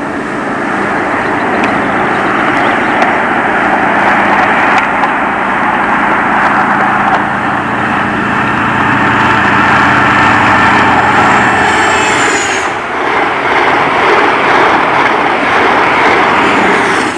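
InterCity 125 High Speed Train approaching and passing at speed. The leading diesel power car's engine whine grows louder and drops in pitch as it passes, about twelve seconds in, followed by the rushing noise of the coaches going by. The sound cuts off suddenly near the end.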